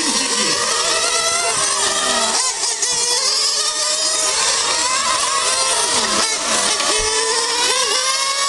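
Several radio-controlled model race cars' small engines racing together, each high-pitched whine rising and falling as the cars accelerate and brake through the corners.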